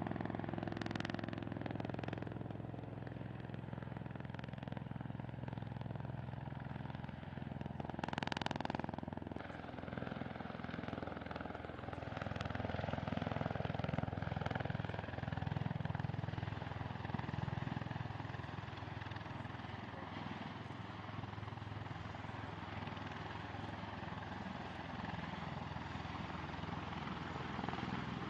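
Aircraft engines running: a steady low drone with a brief sharper burst about eight seconds in.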